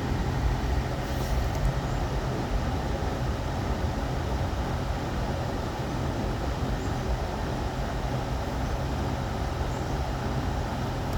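Honda Pilot idling with its air conditioning running on low: a steady low hum under an even rush of air. This is a test run of the freshly recharged A/C system, which is blowing cold.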